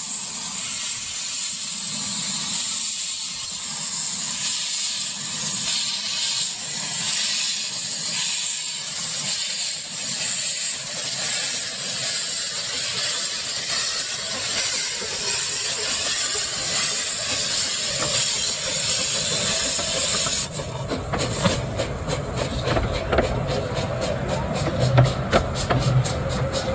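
Narrow-gauge steam locomotive pulling away with its carriages, with a steady hiss of steam from its open cylinder drain cocks. The hiss cuts off suddenly about twenty seconds in, leaving the lower running sound of the train on the track.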